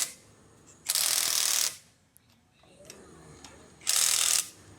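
Two short, loud bursts of a wrench tool working on bolts, one about a second in and a shorter one near the end, each under a second long.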